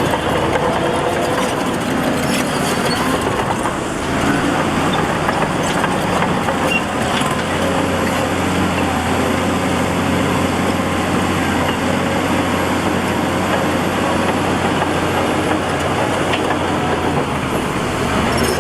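Heavy diesel engine of earthmoving machinery running steadily under a continuous dense mechanical noise.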